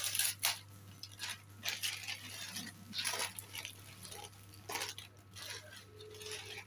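Thin plastic packaging rustling and crinkling in irregular short crackles as a plastic shipping pouch is opened and a plastic-wrapped item is pulled out of it.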